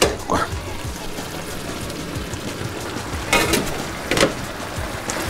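Background music over the steady sizzle of broccoli cooking in a frying pan, with a couple of brief clatters.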